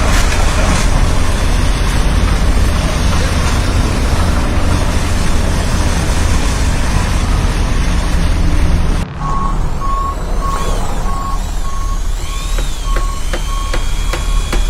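A heavy construction vehicle's diesel engine runs steadily. The sound cuts off abruptly about nine seconds in, and then a reversing alarm beeps about twice a second over the engine.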